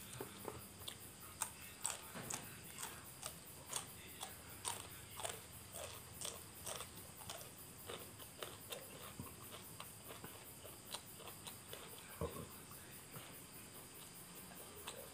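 A person chewing a mouthful of food with small, faint clicking and smacking sounds, about two a second, thinning out after about nine seconds.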